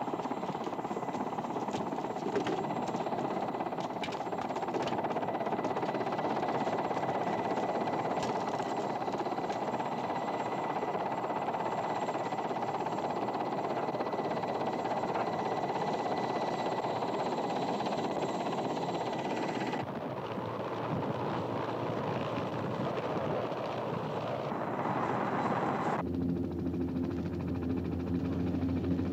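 Mil Mi-8 helicopter running on the ground, turbines and rotor giving a steady dense noise with a thin high whine over it. About twenty seconds in the higher part drops away. Near the end the sound switches to a lower, steady droning hum.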